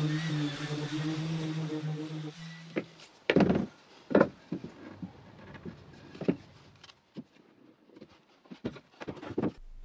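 Random orbital sander running on an oak board, a steady hum that stops about two seconds in. Then a string of separate wooden knocks and clicks as a wooden step is set against a frame and gripped with quick-release bar clamps.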